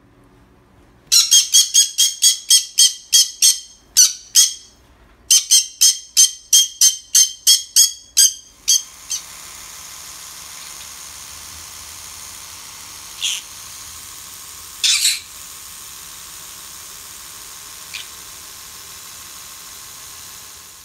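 Green-cheeked conure squawking harshly and loudly in a rapid series of about three calls a second for several seconds, with a short break, a sign of an agitated, over-excited bird. Then a steady electric-toothbrush buzz takes over, with a few single short calls from the bird.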